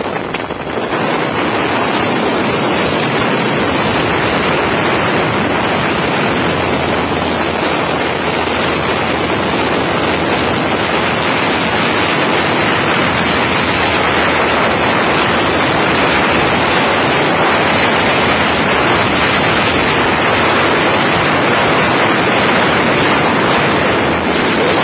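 Loud, steady rush of freefall wind buffeting the microphone.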